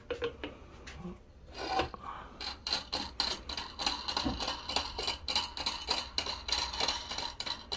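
Hands fitting a spool onto a kite-line winding machine: rubbing and scraping with rapid irregular clicks, starting about one and a half seconds in.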